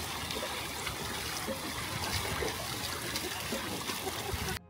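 Water trickling and running steadily in a hand-operated water-play feature, cutting off abruptly near the end.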